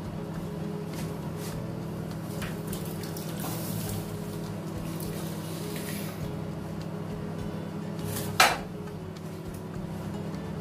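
Cookware handling: a saucepan of tomato sauce is emptied into a metal roasting tin on a gas hob, with small knocks and scrapes of metal pans over a steady low hum. One sharp metal knock, the loudest sound, comes about eight seconds in.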